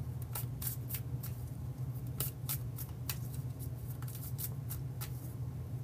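A deck of tarot cards being shuffled by hand overhand, the cards snapping with sharp clicks about three times a second, over a steady low hum.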